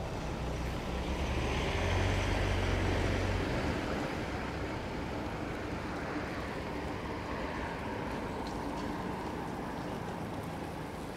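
Town-street traffic: a motor vehicle passes close by, loudest about two to three seconds in, then steady road noise with a fainter second pass a few seconds later.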